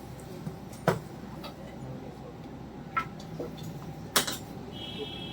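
Three sharp clicks and clinks of small hard objects being handled, about a second apart to start, over a steady low hum, with a brief high tone near the end.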